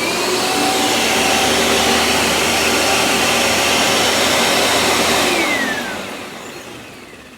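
Panasonic upright vacuum cleaner's motor switched on, spinning up with a rising whine and running steadily. About five and a half seconds in it is switched off, and the whine falls as the motor winds down.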